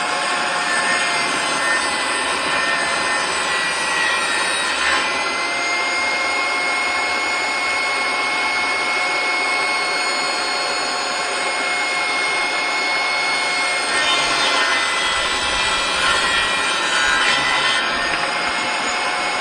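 Kobalt table saw running at speed with a steady high whine. Its pitch sags slightly and the sound thickens about five seconds in, and again for a few seconds near the end, as the blade cuts through 3/4-inch plywood under load.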